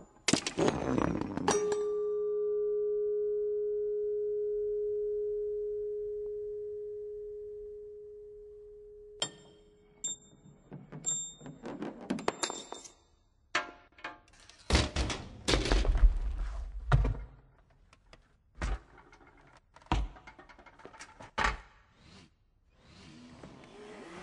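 Honda Accord parts set off one after another in a chain reaction, rolling, clicking and knocking together. About a second and a half in, a struck metal part rings with one steady tone that fades slowly over about seven seconds. After that come more scattered clicks, clatters and a few heavy thumps.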